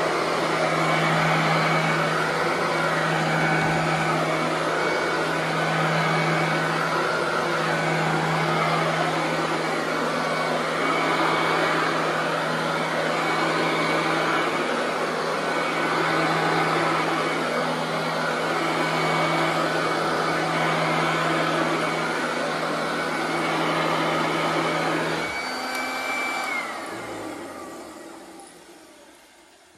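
Royal Everlast upright vacuum cleaner running steadily with a constant hum and whine. About 25 seconds in its motor winds down, the whine falling in pitch and fading away.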